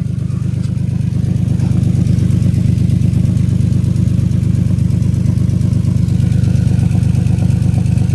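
Infiniti G37's 3.7-litre V6 idling, heard close to the exhaust as a loud, steady, low pulsing drone that grows slightly louder over the first second. The exhaust note comes out through a hole in the muffler, and the owner says the engine is misfiring on cylinder 4.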